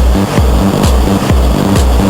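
Electronic dance music with a steady heavy kick drum at about two beats a second and a bass line.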